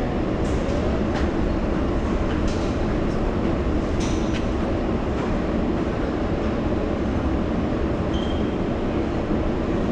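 A New York City subway train running through the station, a steady loud rumble with scattered sharp clicks from the wheels and rails and a brief high squeal about eight seconds in.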